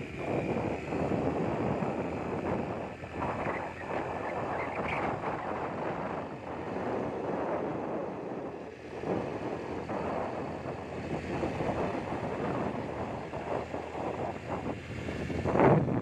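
Wind buffeting the microphone of a moving motorcycle, an uneven rush that swells in a loud gust near the end.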